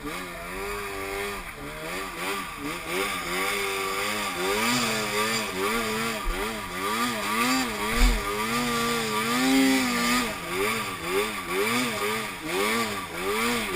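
2011 Arctic Cat M8 snowmobile's 800 cc two-stroke twin engine revving up and down again and again as the throttle is worked. A short low thump about eight seconds in.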